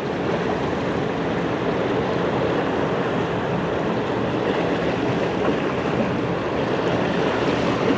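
Steady rushing of turbulent river water in the tailwater below a dam.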